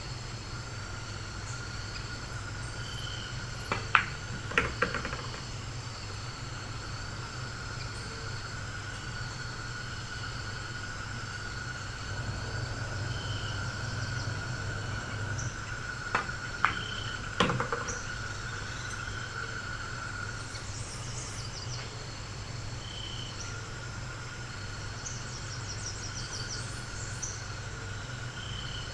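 Pool shots: sharp clicks of the cue tip on the cue ball and of ball striking ball, in two clusters about twelve seconds apart, over a steady room hum.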